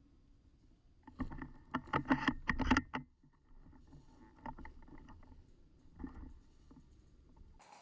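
Close rustling and crunching, as of a person moving through dry brush and leaves: a dense burst of crunches about a second in lasting about two seconds, then fainter, scattered rustles.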